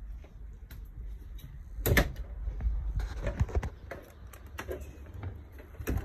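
Knocks and clunks of a travel trailer door being opened and shut, loudest a sharp knock about two seconds in and a cluster about a second later, among scattered clicks and a low rumble of handling.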